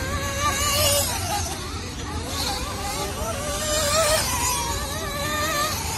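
Several 1/8-scale nitro RC buggies' small two-stroke glow engines whining at high revs, their pitch rising and falling as they accelerate and back off around the track.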